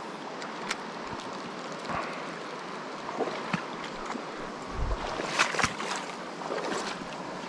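Steady rush of flowing water in a small mountain trout stream, with scattered brief knocks, the loudest a cluster of them about five seconds in.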